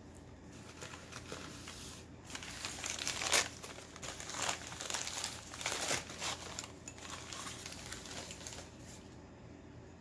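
Packing wrap crumpling and rustling as an item is unwrapped by hand, loudest in the middle and fading out near the end.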